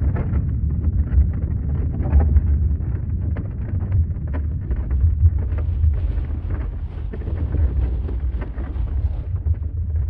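Earthquake rumble sound effect: a deep, continuous low rumble with scattered crackles and rattles over it.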